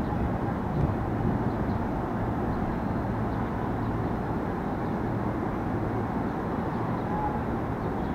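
KRL commuter electric train standing at the platform, its onboard equipment giving a steady hum under an even rushing noise.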